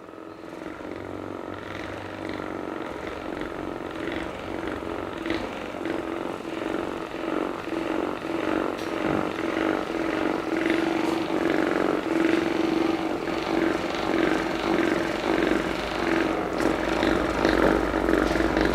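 Steady hum of a small motor running, growing gradually louder, with faint rapid ticking over it.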